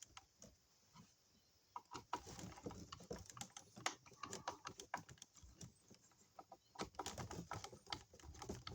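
Faint, irregular small clicks and taps of hands pushing wires and plastic wire nuts back into an electrical outlet box, starting about two seconds in.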